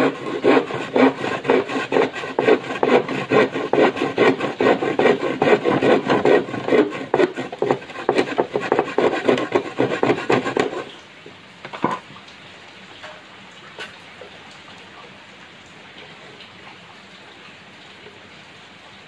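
Handsaw cutting through a thin plywood sheet with fast, even back-and-forth strokes. The sawing stops a little past halfway, followed by a single knock, then only a faint steady hiss of rain.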